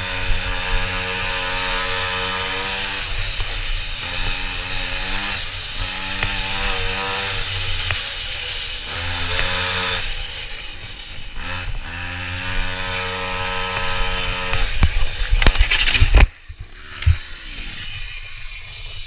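Minimoto (pocket bike) engine running hard at high revs, pitch rising and falling as the rider accelerates and brakes through the corners. About fifteen seconds in, the bike goes down: a loud scraping clatter, the engine cuts off suddenly, and a couple of thumps follow.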